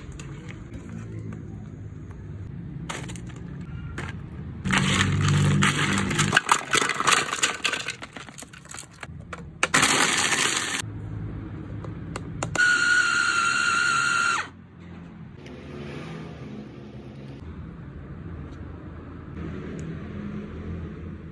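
Electric food chopper running in several loud bursts, grinding boiled, softened crackers into a paste. In the last burst the motor holds a steady whine, which cuts off suddenly about two-thirds of the way through.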